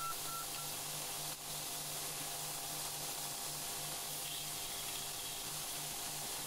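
Belt grinder running with a steel knife blank held by hand against its fine-grit belt, giving a steady grinding hiss over the motor's low hum. This is the rough grind that takes the worst off a thin farrier's knife blade.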